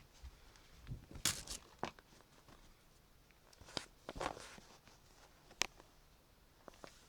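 Faint handling noise: a few scattered clicks and rustles, with the sharpest ones about a second in, in the middle and near the end.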